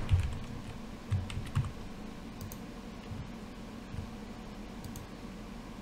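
A few computer keyboard keystrokes in the first two seconds, then a single click about four seconds in.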